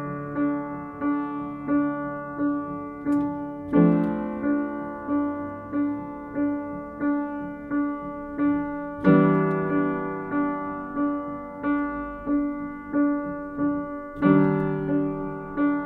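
Instrumental piano-sounding keyboard music. A single note is repeated steadily, about every two-thirds of a second, under sustained chords, and a new chord is struck about every five seconds.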